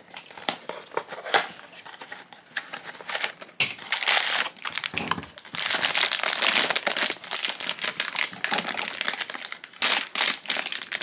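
Silver foil bag of a blind-box figure crinkling and tearing as it is opened by hand: scattered rustles at first, then dense, continuous crinkling from about four seconds in.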